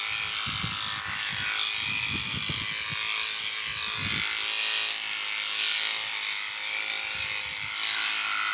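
Corded handheld electric sheep-shearing clipper running with a steady motor whine as it cuts through a sheep's wool.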